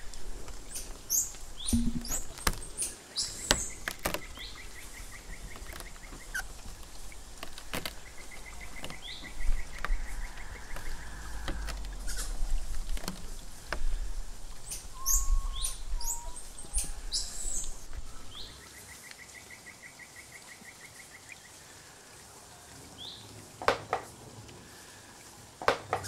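Foley forest ambience: birds chirping, with a short rattling trill that comes three times, over scattered sharp clicks and taps. A low rumble under it drops away about two-thirds of the way through, and two louder clicks come near the end.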